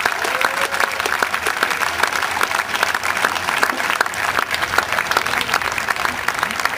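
Spectators applauding steadily with many overlapping hand claps after the final point of a tennis match.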